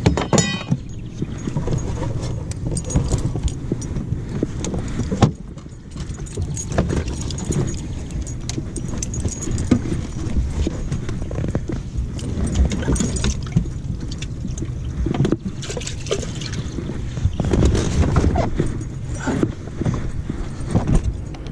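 Close handling noise on a body-worn microphone: rustling and repeated small knocks as a caught bass is handled aboard a boat, over a steady low rumble.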